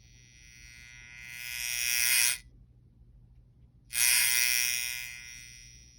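Electrical buzz from a PWM lamp dimmer driving incandescent lamps, the buzz that sets in at higher duty cycles. It grows louder over about two seconds and cuts off abruptly. After a second and a half of quiet it starts again suddenly and fades away.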